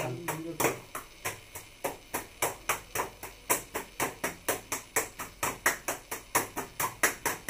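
Two people's gloved hands clapping together in a patty-cake clapping game, a fast, even rhythm of about four to five claps a second.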